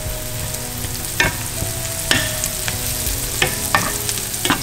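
Butter melting and sizzling in a hot skillet of diced onions and avocado oil, with a spatula pushing it around and scraping or tapping the pan about five times.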